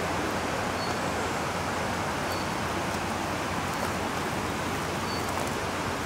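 Steady rushing water noise, even and unbroken. Three brief faint high chirps rise above it, about a second in, midway and near the end.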